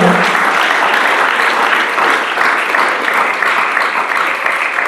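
A congregation applauding, a dense steady clapping that slowly fades.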